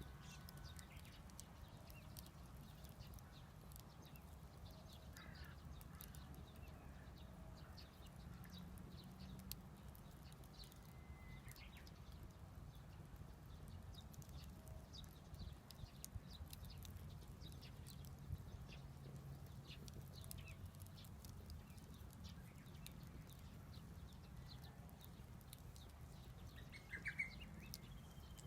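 Faint, scattered crackling and popping of a small wood fire burning in the garden, over a low steady hum. A bird chirps faintly a few times, most clearly near the end.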